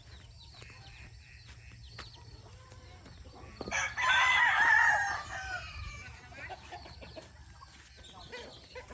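A rooster crows once, about four seconds in, over faint clucking and calls from a flock of chickens.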